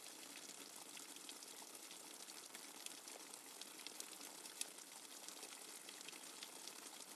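Rain water dripping fast and hard: a dense, steady patter of many sharp drop ticks over a continuous hiss.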